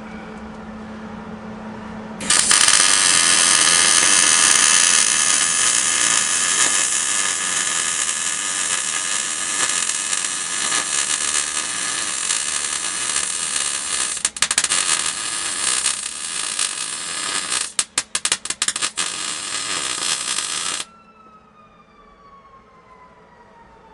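An electric grinder runs at full speed for about eighteen seconds, cutting out briefly a few times near the end. It is then switched off and winds down with a falling whine.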